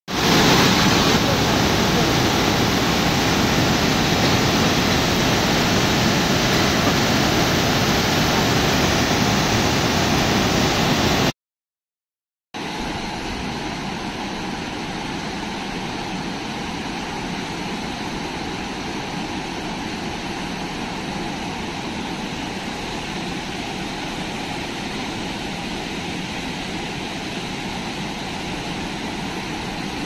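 Floodwater of a river in spate after about 14 inches of rain, rushing over the Rumpum waterfall in a steady roar. The sound cuts out for about a second some eleven seconds in, then resumes quieter.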